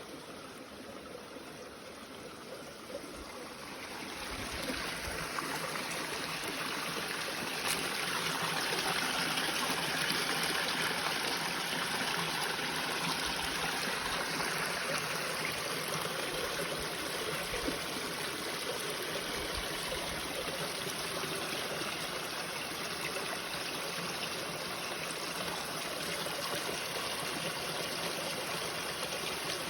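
Waterfall water flowing and splashing steadily, growing louder about four seconds in.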